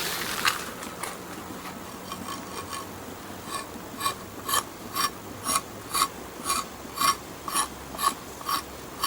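Bark being scraped off a stick of firewood to see whether the wood under it is green. The short scrapes come about twice a second, faint at first and plainly heard from a few seconds in.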